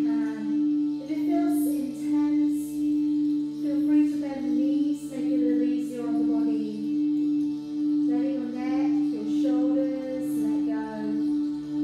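Calm background music: a high voice singing a slow, gliding melody over one steady held drone note.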